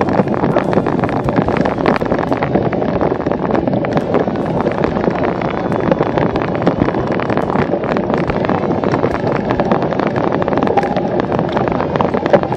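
Cyclocross bike ridden fast over bumpy grass: a steady rumble of tyres and rattling, with frequent small knocks. Wind buffets the microphone throughout.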